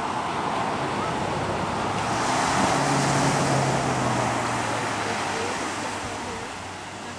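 Ocean surf breaking and washing in the shallows, swelling to its loudest about two to four seconds in and easing off toward the end. A faint low hum sits underneath in the middle.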